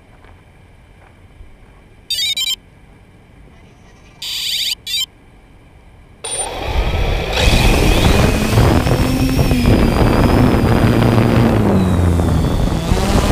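3DR Solo quadcopter: two short electronic beeps, then about six seconds in its propeller motors spin up with a rising whine and it lifts off, running loud and steady with a high whine, heard from the camera mounted on the drone.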